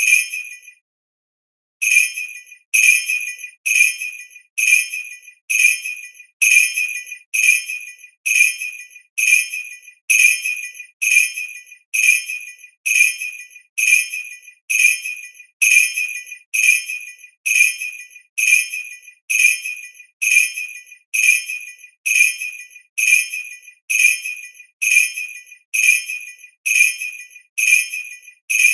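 Sleigh bell giving single short jingling rings that fade quickly, repeated about once a second after a brief pause near the start.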